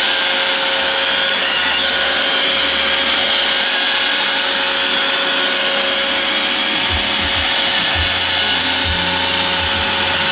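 iRobot Roomba 760 robot vacuum running, its vacuum motor and brushes giving a steady whine over a rushing hiss, with a few low thuds in the second half.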